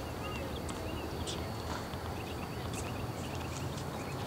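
Outdoor tennis-court ambience: a steady low rumble, with faint short high chirps and a few faint distant taps scattered through it.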